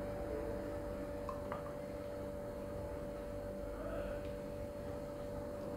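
Quiet background with a steady faint hum and a couple of soft clicks about a second and a half in.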